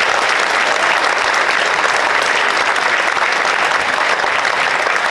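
Theatre audience applauding loudly: dense, steady clapping that swells in just before and carries on unbroken.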